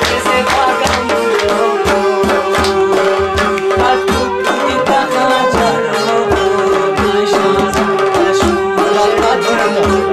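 Pashto folk song played live on a long-necked lute and harmonium over a steady hand-drum beat, with a man singing.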